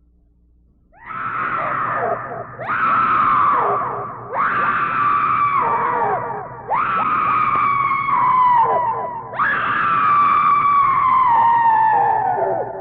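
Five long screams one after another, starting about a second in, each held and then dropping in pitch as it trails off: a haunted-house scream effect.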